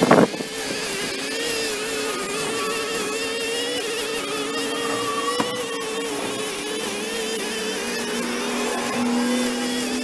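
Backpack brush cutter engines running as weeds are cut, their pitch wavering up and down as the throttle is worked, with a second engine at a steadier, lower pitch joining toward the end. A brief thump at the very start.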